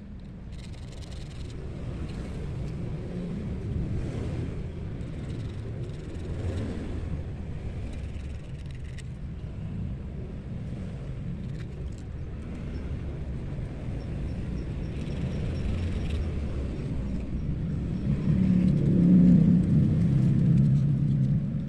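Steel fishing hook point rubbed on folded sandpaper to sharpen it, with faint scratching strokes now and then. A steady low rumble lies under it and grows louder near the end.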